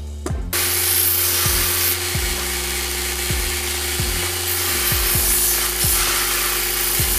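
Belt grinder running with a steady motor tone while a small steel plate is pressed against the abrasive belt, giving a loud, harsh rasping hiss of metal being ground. It starts about half a second in.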